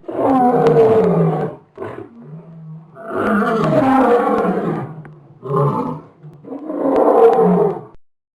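Elephant calling: four loud, long, rough calls, each lasting one to two seconds, with a low steady tone sounding between some of them.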